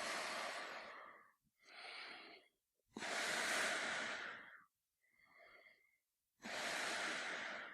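A man breathing through a gas mask: slow, heavy breaths, louder ones taking about a second and a half each and alternating with softer, shorter ones. One of the softer breaths, a little past the middle, carries a thin whistle.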